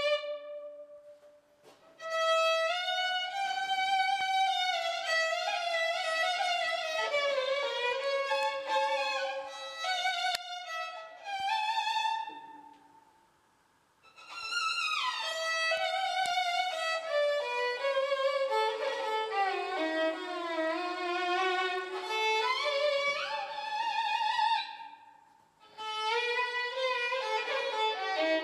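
Solo violin music: a melody of wavering, vibrato notes in phrases separated by short pauses.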